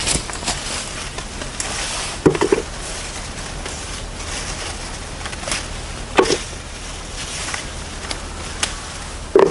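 Beans being picked by hand from a leafy climbing bean plant: leaves rustling and pods snapping off, with a few hollow knocks as pods drop into a plastic tub.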